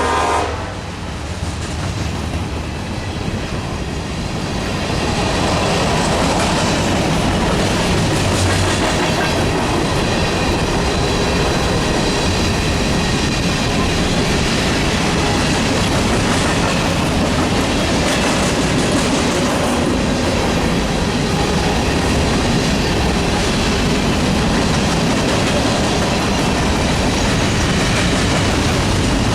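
Freight train of grain hopper cars rolling past at speed, with a steady clatter of wheels over the rails. A horn blast cuts off just as it begins.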